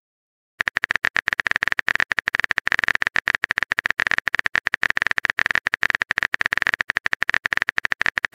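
Phone keyboard typing sound effect: a rapid, steady run of clicks that starts about half a second in and keeps going.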